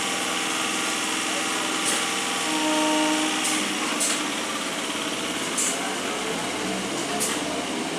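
Electric multiple-unit (EMU) local train moving slowly through a station, its traction motors giving a steady electric whine of several tones, with a few sharp high clicks from the running gear.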